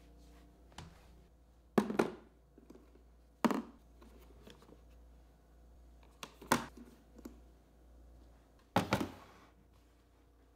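Plastic countertop compost bin being handled, its lid and body knocking: four sharp thunks about two seconds apart.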